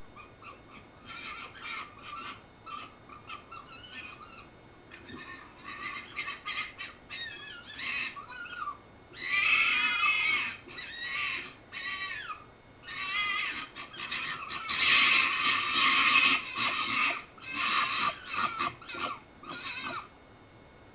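Several foxes calling together: an irregular run of short, high-pitched cries and chattering calls, some rising and falling in pitch, overlapping one another. The calls are loudest in two spells, near the middle and about three quarters of the way through.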